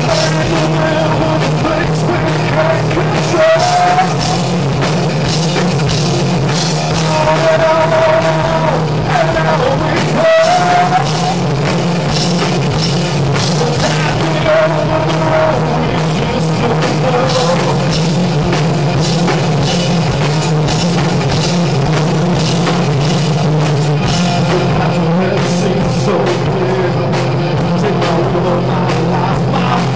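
Live rock band playing: electric guitars, bass guitar and drum kit, with a melody holding a few long notes in the first half.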